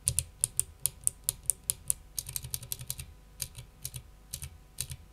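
Typing on a clicky mechanical keyboard: sharp keystroke clicks in fast, uneven runs.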